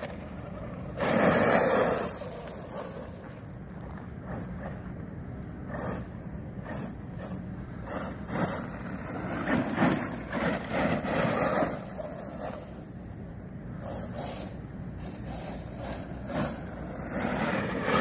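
Arrma Mojave RC truck with an X-Maxx brushless motor on 8S, driving on gravel: tyres spinning and scattering gravel, with louder surges of throttle about a second in, around ten seconds in and near the end.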